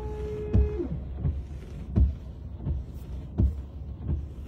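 Windshield washer pump humming with a steady tone for under a second and then cutting off, with no fluid coming out: the pump is running dry because the washer reservoir is empty ('Washer Fluid Low'). The wipers then sweep the dry windshield with a dull thump about every 0.7 s.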